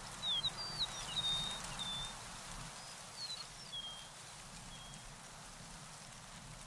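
A small bird chirping: a quick run of short high chirps and whistles in the first two seconds, then a few fainter ones, over a steady background hiss.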